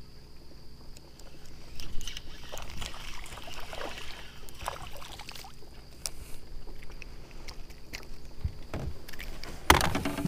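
A hooked fish splashing and thrashing at the surface while it is played, then a sharp loud knock and rattle near the end as the fish is swung aboard and strikes the aluminium jon boat's hull.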